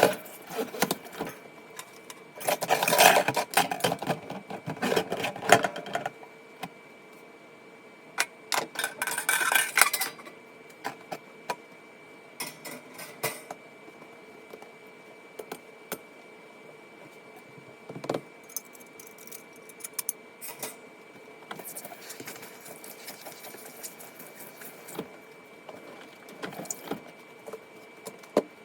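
Household items being handled during cleaning: clinks, clatter and rubbing, with denser bursts of scrubbing or rustling in the first ten seconds and scattered sharp clicks after.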